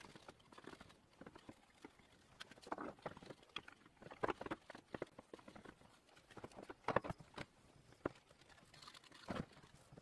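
A cloth rag wiping and rubbing a metal bicycle truing stand, with irregular light knocks and clicks as the stand's arms and base are handled.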